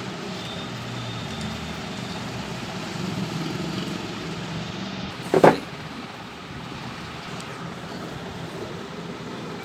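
A single sharp click about five seconds in, as a mains switch is thrown to feed the inverter through its series connection, over a steady low hum and background noise.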